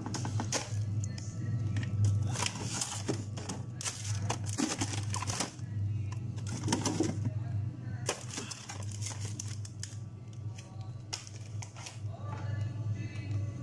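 Plastic bags and packages rustling and crinkling in a freezer as they are handled, in irregular crackly bursts over a steady low hum.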